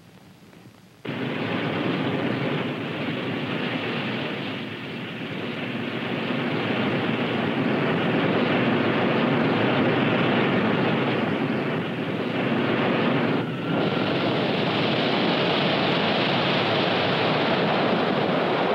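Rocket sled's rocket motors firing: a loud, steady roar that starts suddenly about a second in, dips briefly near two-thirds of the way through, then carries on.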